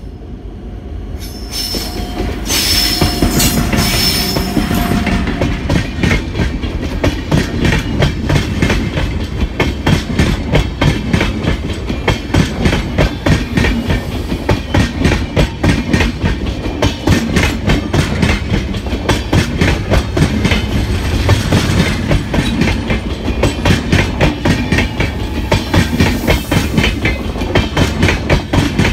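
A WAP-7 electric locomotive passes at speed, its sound swelling over the first few seconds, followed by a long rake of passenger coaches. The coaches' wheels make a steady rhythmic clatter over the rail joints.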